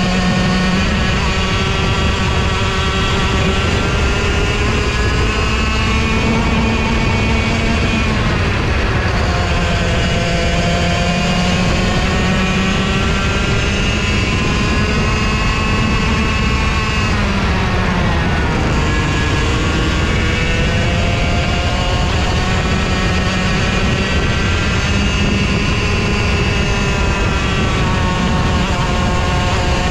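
Racing kart engine heard from on board at full throttle, its pitch dipping as the kart lifts for corners and climbing again on the exits, with the deepest drops about 8 and 18 seconds in. Wind and rushing noise lie under the engine note.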